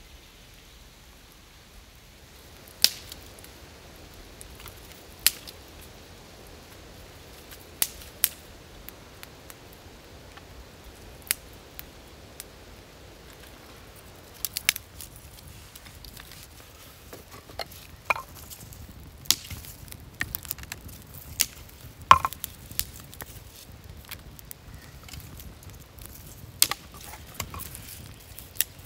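Dry wood kindling and shavings snapping with sharp cracks at irregular intervals, the cracks coming more often in the second half.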